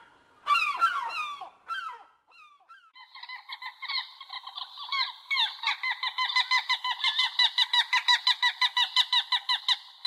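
Gulls calling: a few loud, falling calls in the first two seconds, then from about three seconds in a fast run of short repeated notes, about four or five a second, growing louder toward the end.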